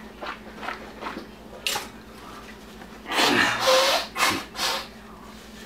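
A man blowing his nose hard into a tissue about three seconds in, a noisy blast with a brief honk, then two shorter snorts. His nose is running from the burn of pepper spray he has eaten.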